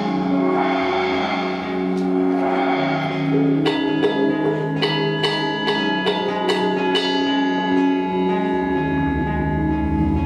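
Live ambient folk music: a didgeridoo drone under acoustic guitar. From about four seconds in, a run of struck metallic notes comes in and rings on over the drone, which deepens near the end.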